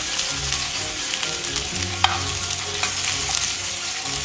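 Bok choy, fennel and green onions sizzling steadily in hot olive oil in a frying pan while metal tongs turn them. The tongs give a few sharp clicks against the pan, the loudest about two seconds in.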